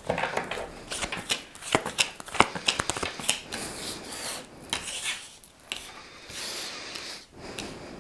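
A deck of tarot cards shuffled by hand: a rapid run of crisp card snaps and slaps, settling into a softer, continuous rustle of sliding cards that fades near the end.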